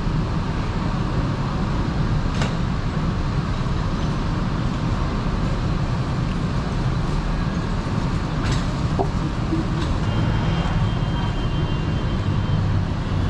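Steady low rumbling background noise of a busy market, with a few short, light clicks.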